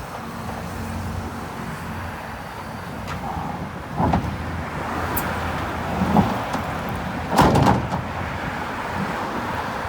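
Heavy earthmoving machine's diesel engine running steadily, with a few loud clanks and knocks of metal and rock, the loudest about seven and a half seconds in.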